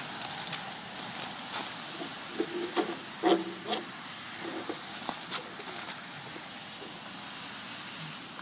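Clicks, knocks and short scrapes as the metal skirt around the base of a lamp post is handled and lifted, the loudest knock a little over three seconds in, over a steady hiss. After about six seconds only the hiss is left.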